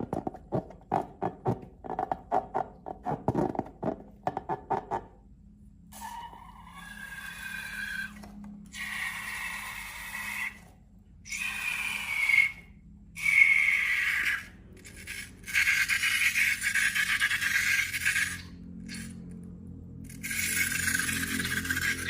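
Slime squelching and popping in quick wet clicks for about five seconds. Then come several squealing, hissing stretches a few seconds long, each with a wavering high tone: air escaping through a stretched balloon neck.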